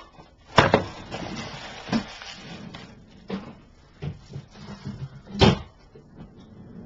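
Handling noises: several knocks and thuds as things are moved about, the loudest about five and a half seconds in, with light rustling between them.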